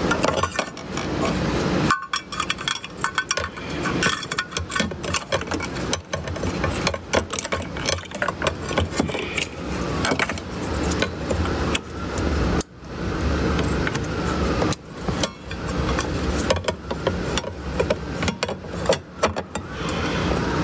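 Repeated clinks, clicks and rattles of tools and metal parts being handled during fuel pump installation, over a steady low hum.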